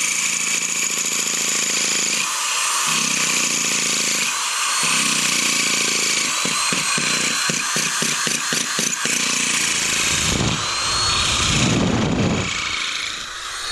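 Electric drill without hammer action grinding a masonry bit through a pressure-treated wood plate into the concrete slab below, running steadily. A little past the middle the sound flutters about four times a second, and near the end a deeper rumble joins it.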